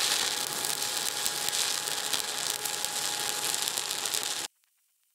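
Stick-welding arc from a 7018 electrode crackling steadily on a steel plate, cutting off suddenly about four and a half seconds in.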